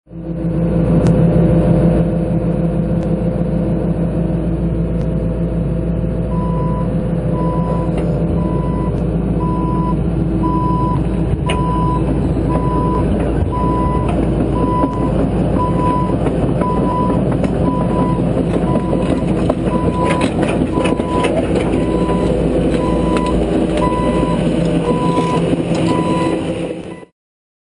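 John Deere 160C LC excavator running under load with its diesel engine. From about six seconds in, its travel alarm beeps steadily, about three beeps every two seconds. A few sharp clanks come near the end before the sound cuts off abruptly.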